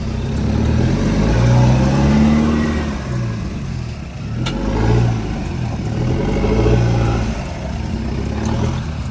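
A 4x4's engine revving up and falling back about three times as it is driven on a rough off-road track, with one sharp knock about four and a half seconds in.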